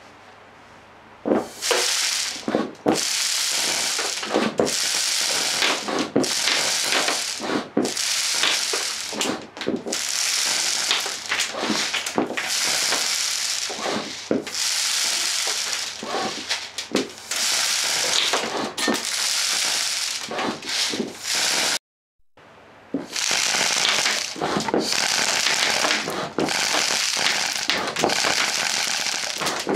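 Homemade air gun firing long rapid-fire streams of BBs: a steady rush of air over a dense, irregular clatter of pellets striking the cardboard and plastic-wrapped target. The firing starts about a second in and breaks off briefly about two-thirds of the way through before resuming.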